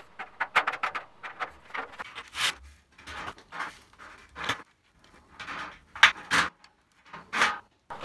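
Thin sheet-steel 36 mm drywall studs being handled and fitted into their tracks: a run of irregular light metallic clicks, knocks and scrapes.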